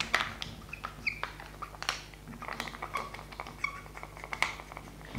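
Marker writing on a glass lightboard: irregular short squeaks and light taps of the tip on the glass, several a second.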